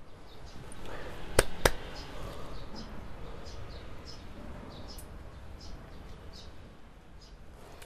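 Two sharp hand claps a quarter of a second apart, the claps of a Shinto shrine prayer, about a second and a half in. Small birds chirp repeatedly in the background.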